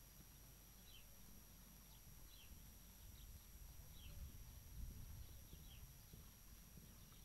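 Faint, dull hoofbeats of a horse cantering on sand, with a small bird chirping short falling notes about once a second.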